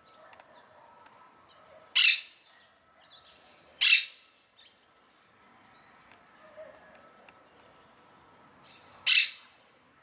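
Monk parakeet giving three short, loud, harsh squawks: about two seconds in, about four seconds in, and near the end. A faint high chirp from another small bird comes in between, about six seconds in.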